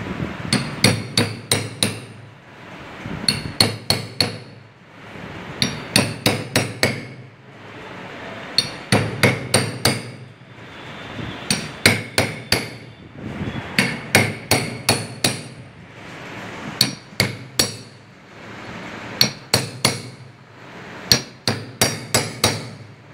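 Hammer blows on a steel pipe held against an oil seal, driving the seal into the end cover of an open-well pump motor. The blows come in quick bursts of four or five sharp metal strikes, repeated every two to three seconds.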